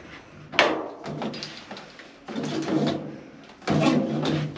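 Handling noise from work on the back of a washing machine while its water-inlet hoses are unscrewed: a sharp knock about half a second in, then two stretches of scraping and rubbing.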